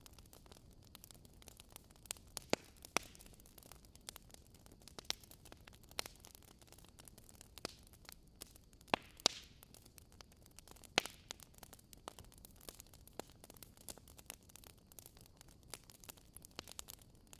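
Wood fire crackling in a fireplace: a soft steady hiss with irregular snaps and pops, a few sharper ones standing out.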